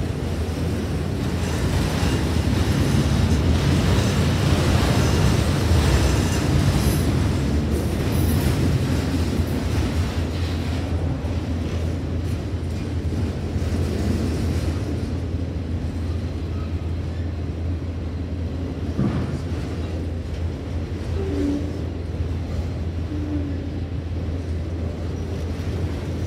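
Freight train of autorack cars rolling past at a grade crossing: a steady rumble of steel wheels on the rails, a little louder a few seconds in.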